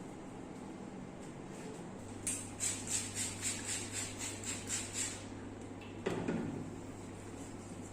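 Percussive massage strokes: about ten quick, rhythmic slaps of hands on the body, roughly three a second, followed a second later by a single heavier thump.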